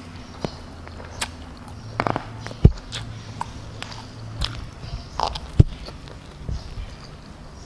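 Close-miked eating sounds: metal tongs and a spoon clicking and knocking against a plastic food tray as a mouthful of omelette and noodles is scooped up, then biting and chewing. Two sharp knocks stand out, about two and a half and five and a half seconds in.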